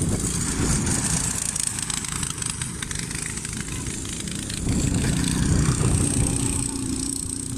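Small cyclekart engines running as the karts drive past on a grass track, loudest as one passes close about five to six seconds in.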